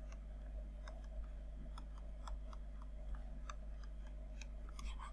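Faint, irregular ticks of a stylus tapping and sliding on a pen tablet during handwriting, over a steady low electrical hum.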